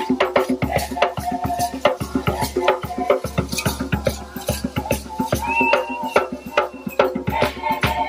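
Youth choir singing to a djembe hand drum, with rattles shaking along in a quick, steady beat.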